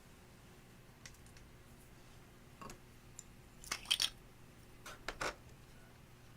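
Glossy slime being worked by hand, giving a few short, sticky clicks and pops in small clusters. The loudest come about four seconds in.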